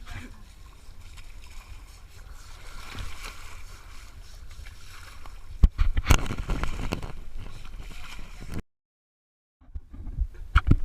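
Water splashing and sloshing around a bathing elephant, with a cluster of louder splashes about six seconds in; the sound cuts out completely for about a second near the end.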